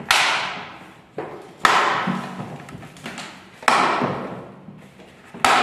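Four sharp knocks as the chrome plastic wheel cover is hit home onto the hollow plastic wheel of a ride-on toy car. Each knock rings out and fades over about a second.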